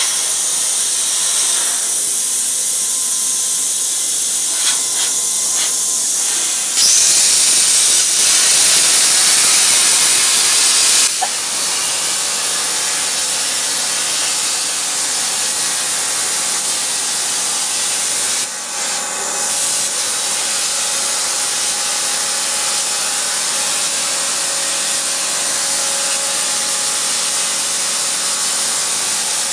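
CNC plasma cutter's torch hissing steadily as it cuts galvanized sheet steel. It grows louder for a few seconds about a quarter of the way in and drops briefly about two-thirds of the way through.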